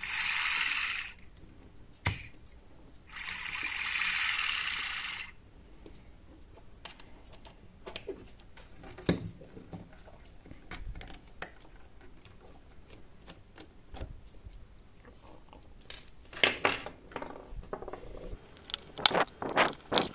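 Two bursts of hiss, about a second and then about two seconds long, followed by scattered small clicks and taps of screws and metal parts of the encoder housing being handled and worked with a screwdriver, coming thicker near the end.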